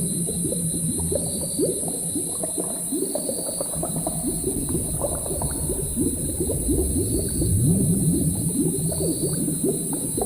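A cauldron of liquid bubbling at a simmer, a dense run of quick popping bubbles over a steady high hiss.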